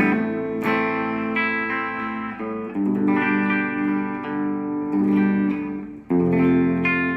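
Electric guitar played through a G Tank on its factory sound setting. Chords are struck and left to ring, a new chord every second or two.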